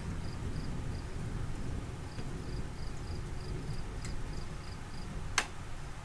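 Cricket chirping in short pulses about three times a second, with a brief pause near the start, over a steady low rumbling noise. A single sharp click near the end is the loudest sound.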